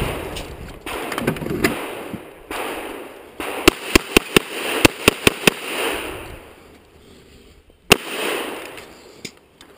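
Semi-automatic pistol fired in a fast string of about eight shots over two seconds, then a single shot about two seconds later.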